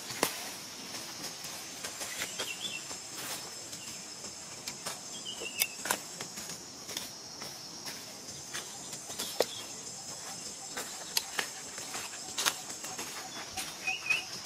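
Steady high insect drone, with sharp crackles of dry leaf litter as the monkeys shift about and a few short high chirps scattered through.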